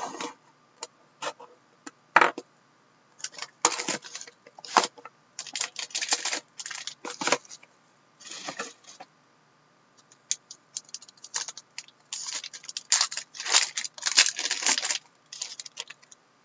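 A trading-card box being opened and its foil-wrapped pack torn open: irregular bursts of crinkling, tearing and scraping of foil and cardboard, heaviest in two stretches, a few seconds in and again near the end.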